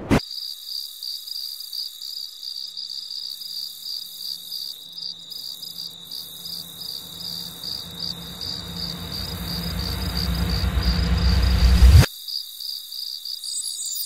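Cartoon cricket-chirping sound effect: a steady, high, pulsing trill. Beneath it a low rumble swells for several seconds and then cuts off suddenly near the end.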